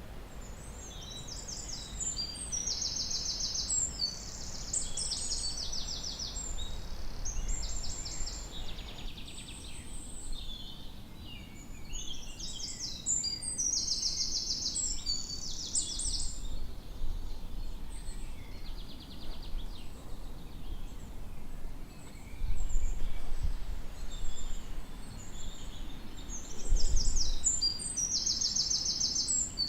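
Several songbirds singing in a forest, with high, rapid trilled phrases repeated every few seconds over other chirps, against a soft background hiss. Twice, about two-thirds of the way through and again near the end, a brief low rumble is louder than the birds.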